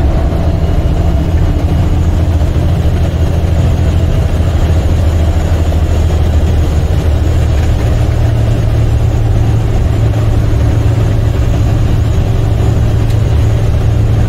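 International semi-truck's MaxxForce 13 diesel engine running steadily while driving, heard from inside the cab; its low note steps up in pitch about halfway through.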